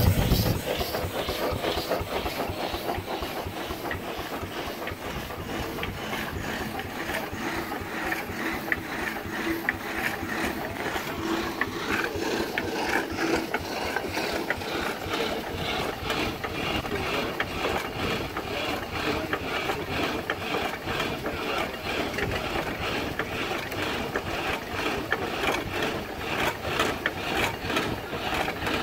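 Steam-powered, belt-driven drag saw running, its spur gears and crank mechanism clattering in a steady, even rhythm.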